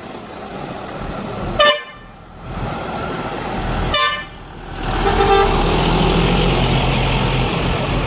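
Two short blasts of a bus horn, about two and a half seconds apart. Then a coach's diesel engine runs louder and steadier as the bus pulls away past.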